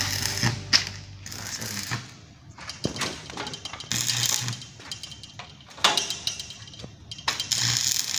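Irregular knocks and clicks with a few short rattling, scraping bursts: hands-on work with tools and metal parts.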